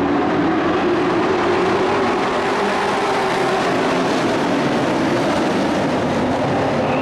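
Engines of a pack of pickup-bodied race trucks running together at speed around the oval, a loud, steady, overlapping drone.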